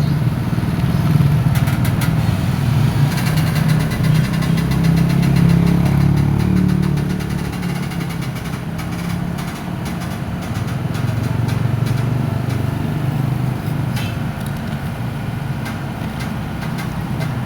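Komatsu excavator's diesel engine running, a steady low drone that grows louder about three to seven seconds in and then eases, with scattered faint clicks.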